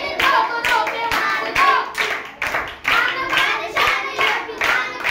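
Two boys singing a song together in unison, their child voices carrying the melody, with sharp clap-like beats about twice a second.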